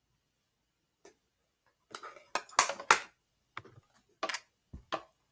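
Makeup items clicking and clattering as they are handled on a table. There are a few sharp taps about two to three seconds in, then scattered single clicks.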